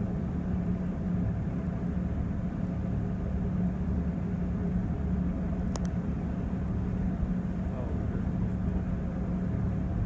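A sailing yacht's inboard engine running steadily at low revs while it manoeuvres under power to berth, a constant hum. A single short click about six seconds in.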